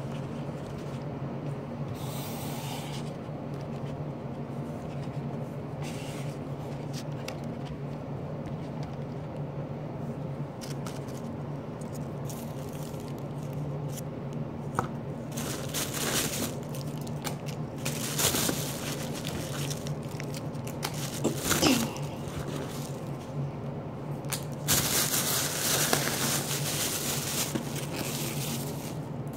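Thin plastic carryout bag rustling and crinkling in bursts as takeout containers are handled and lifted out of it, heaviest near the end, over a steady low hum.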